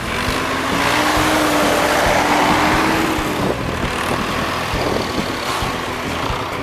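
Vintage diesel tractors driving past in a line. The nearest, a red Massey Ferguson, is loudest as it passes. Its engine note rises slightly and holds, then drops away about halfway through as the next tractor comes by.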